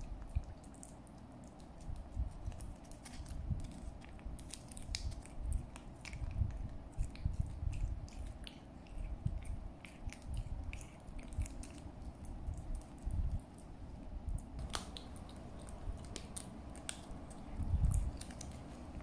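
Golden British shorthair kitten licking lickable paste from a squeeze-tube cat treat: a steady run of small wet smacking clicks, with occasional dull low thumps.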